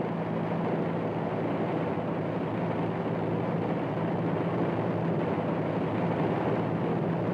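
Piston-engined transport aircraft droning steadily: a constant low engine hum over a rushing noise.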